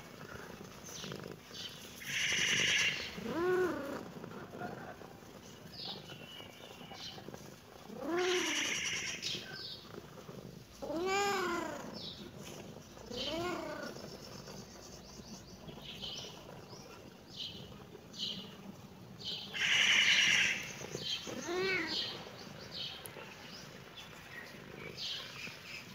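Tabby-and-white cat meowing about five times, spaced a few seconds apart, each meow rising and then falling in pitch. Three short rushes of hiss-like noise come just before some of the meows and are the loudest sounds.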